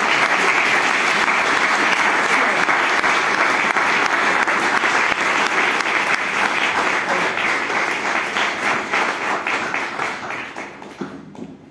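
Audience applauding: dense, steady clapping that thins out and fades away near the end.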